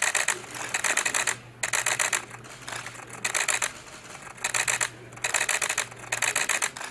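Bursts of crackling radio-link noise, a little over one a second, each a rapid patter of clicks, over a faint steady low hum.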